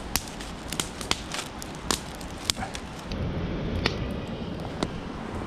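Split-wood campfire crackling, with sharp, irregular pops and snaps over a steady background rush.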